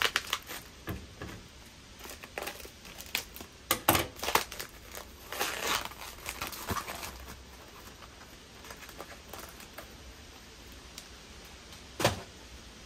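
Parcel packaging being unwrapped by hand: crinkling and rustling of the wrapping, with scattered clicks and taps, busiest in the first half and quieter later, and one sharp knock near the end.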